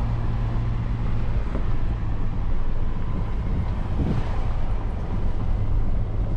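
Toyota FJ Cruiser's 4.0-litre V6 engine running steadily as it drives a dirt four-wheel-drive track, with tyre noise.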